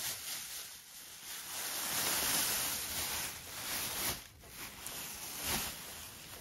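Thin clear plastic bag rustling and crinkling as it is pulled off a vacuum-packed plush teddy bear, in uneven swells, loudest about two seconds in.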